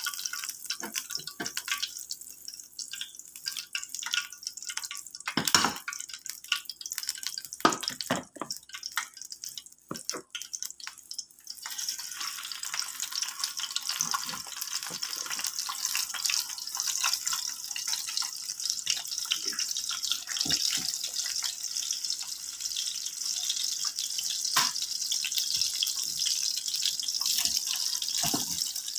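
Slices of Spam frying in hot oil in a pan. The first twelve seconds hold scattered crackles and knocks, then a steady high sizzle sets in and keeps going with fine crackling.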